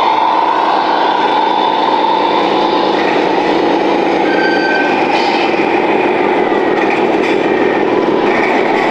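Radio-controlled model construction vehicles running: a steady mechanical whir and rumble, with a brief high-pitched tone about four and a half seconds in.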